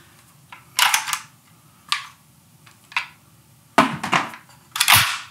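Metal and polymer clicks and clacks of an AK-pattern pistol being handled, about five sharp knocks roughly a second apart, the last near the end the loudest.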